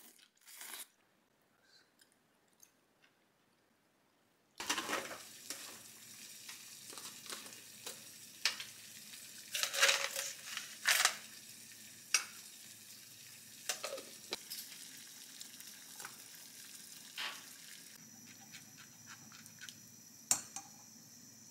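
A few soft eating clicks at first. Then, about four and a half seconds in, cooking on a gas hob: a steady hiss under a pot of broth heating to the boil, with repeated clinks and knocks of pots, lids and utensils, and a metal mesh strainer skimming the broth near the end.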